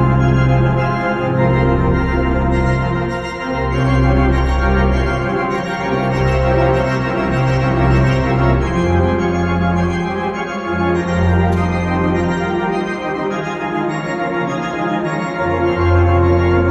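Church organ playing slow sustained chords over deep bass notes that shift every second or two.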